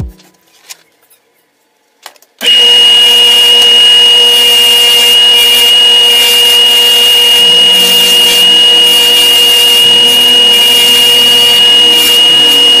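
Bench buffing machine running with a steady whine and hiss as a silver chain is held against the spinning buffing wheel. It starts suddenly about two seconds in, after near silence.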